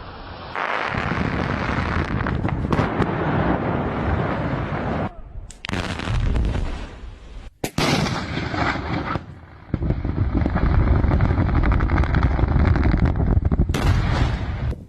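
Demolition noise from a run of short spliced clips: structures breaking and coming down, a loud dense noise that stops and restarts abruptly several times as the clips change.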